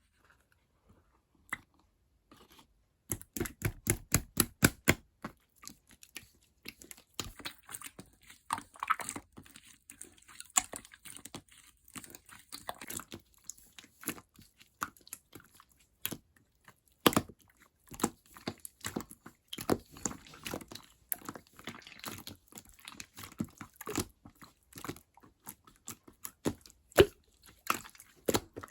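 Slime being squished and poked by hand, giving a dense, irregular run of sharp clicking and popping sounds. It starts about three seconds in, after a near-silent opening with a single click.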